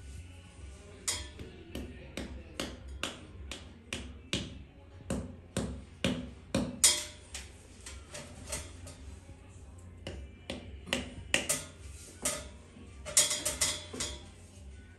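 Background music with a regular beat. Near the end, a claw hammer strikes several quick times at the ceiling.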